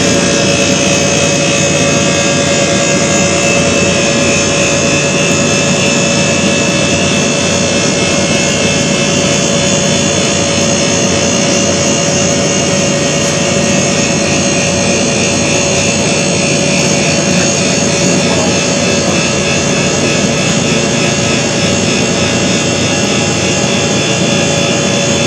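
A loud, steady rushing hiss with a faint steady hum running through it, unchanging throughout.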